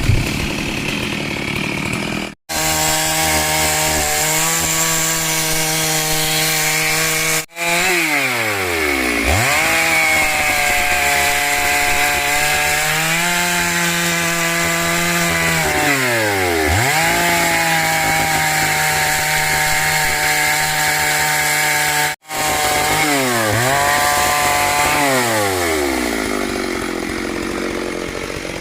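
Two-stroke chainsaw running at high revs. Three times its pitch drops sharply and climbs straight back as the throttle is let off and opened again. The sound cuts out briefly three times.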